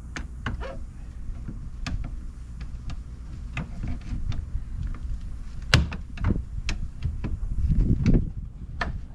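Scattered clicks and knocks of plastic interior trim being pried and handled as its retaining clips are worked loose, with the loudest knock about six seconds in.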